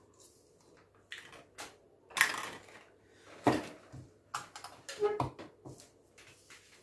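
Clicks and clacks of small plastic bottles, caps and a measuring jug being picked up, fitted together and set down on a table, irregular, with two louder knocks about two and three and a half seconds in.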